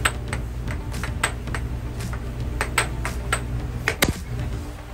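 Air hockey puck clacking sharply off the mallets and table rails in a fast rally, hits at an uneven pace of about three a second, the hardest one about four seconds in, over a steady low hum.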